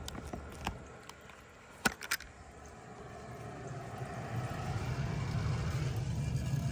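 A few sharp clicks, then the 1992 Bard wall-hung heat pump's motors come up to speed over a couple of seconds and settle into a steady low hum.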